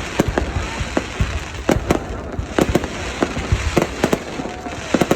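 Fireworks going off: many sharp bangs in irregular succession over a continuous low rumble.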